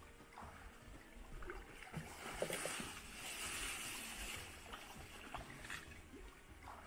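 Soft swishing and splashing of water as a hand dip net on a telescopic pole is swept through shallow stream water along a grassy bank. It is loudest about halfway through.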